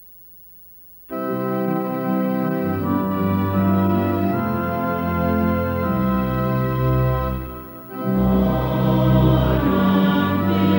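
Organ playing slow, sustained hymn chords over a low bass line: the introduction before the choir comes in. It starts about a second in and dips briefly past the middle before going on.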